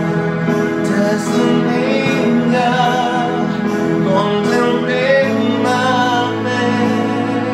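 A man singing into a handheld microphone over a backing track of sustained chords, his held notes wavering. The backing chord and bass note change about five seconds in.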